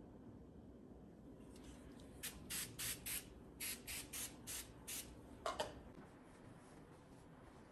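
An aerosol can of Sprayway foaming glass cleaner sprayed in about nine short hissing bursts onto a glass tabletop, followed by a brief double knock.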